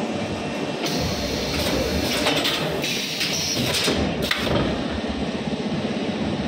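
Automatic bambooless incense-stick machine running with a steady low rumble. About a second in, a loud hiss of compressed air with a few sharp clacks starts and cuts off after about three and a half seconds: the pneumatic cylinders of its collection tray working.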